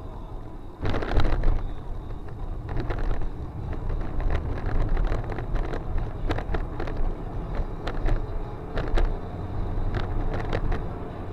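Car driving, heard through a dash cam's microphone inside the cabin: a steady low road rumble, a sudden loud burst about a second in, then scattered knocks and clicks.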